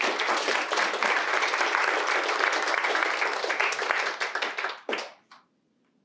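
An audience applauding, dying away about five seconds in with a few last separate claps.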